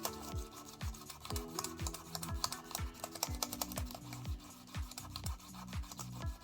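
Background music with a steady beat about twice a second, over a rapid scatter of clicks from the keys of an Apple iMac keyboard pressed while they are wiped clean.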